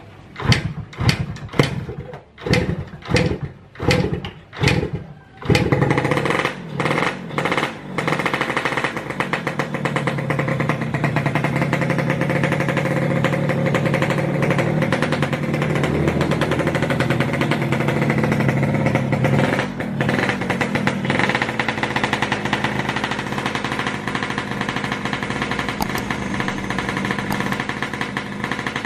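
Freshly reassembled Yamaha RX King's 135cc two-stroke single-cylinder engine firing in about eight short bursts over the first five seconds, then catching and running steadily.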